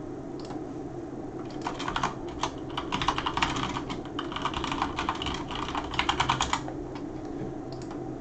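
Typing on a computer keyboard: a quick, irregular run of key clicks starting a couple of seconds in and stopping after about five seconds, over a faint steady low hum.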